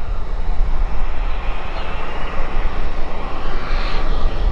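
Turbine-powered RC model jet flying by: a loud jet rush with a whine that shifts in pitch, brightest near the end, over a low rumble.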